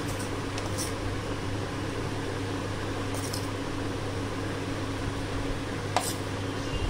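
Steady mechanical hum, as of a running fan, with a few faint light clicks.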